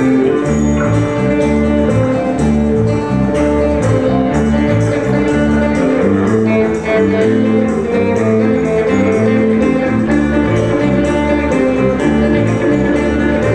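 Instrumental background music with a steady beat and sustained pitched notes.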